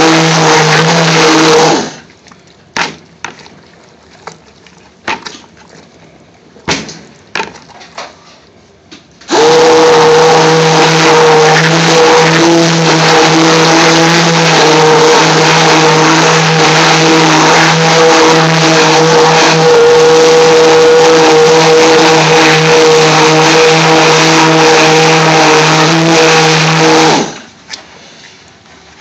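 Stick blender motor running at a steady pitch, blending chopped garlic and ginger with oil and water into paste. It cuts off about two seconds in, a few faint knocks follow, then it starts again after about nine seconds and runs until near the end.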